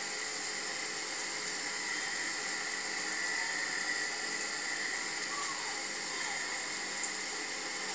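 Steady background hiss with a faint high whine, unchanging throughout.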